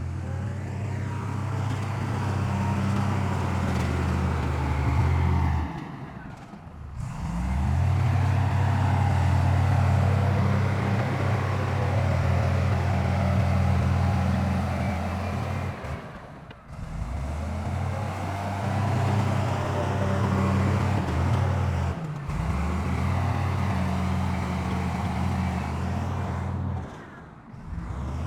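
Heavy diesel engine of earthmoving machinery running steadily at a constant pitch, with a few brief dips in the sound.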